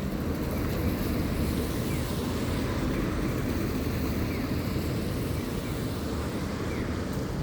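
Steady rushing noise of a bicycle ride on wet streets: wind on the microphone and tyres on wet pavement, with a few faint short squeaks.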